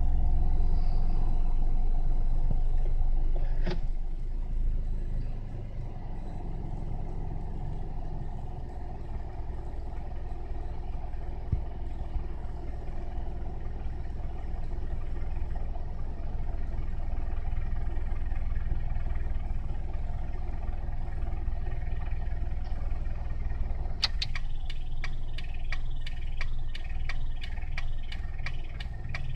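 Toyota Passo's K3-VE four-cylinder engine idling in Drive with an abnormal noise, which the owner puts down to a worn gasket at the joint between the exhaust manifold and the muffler. The idle drops and gets quieter about four seconds in. Near the end a rapid series of sharp ticks starts.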